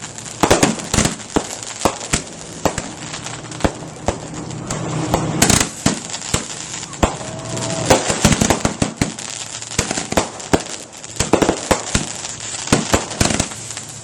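Fireworks going off: a rapid, irregular series of sharp bangs and pops over continuous crackling, with many blasts overlapping.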